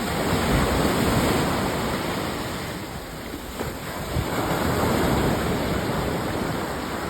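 Sea surf washing onto a sandy beach, a steady rush that swells, eases off in the middle and swells again.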